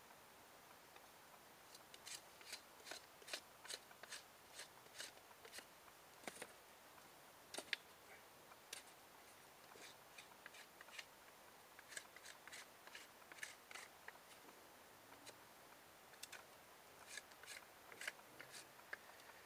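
Faint, sharp crisp clicks or snips in several runs of roughly two a second, with pauses between the runs.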